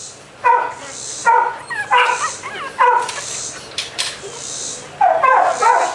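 Australian Shepherd puppies barking: four short, sharp barks less than a second apart, then a few light clicks, then a further run of yipping near the end.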